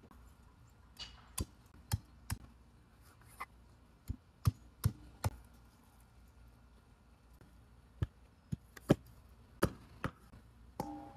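A large knife chopping and cutting up a raw whole duck, its blade striking a wooden cutting board in about a dozen sharp, irregular knocks. A brief pitched sound comes near the end.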